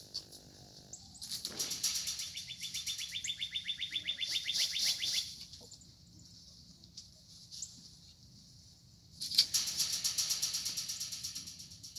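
Lovebirds fluttering their wings in two bouts of rapid flapping, the first starting about a second in and lasting some four seconds, the second near the end, with a quick chattering chirp over the first bout.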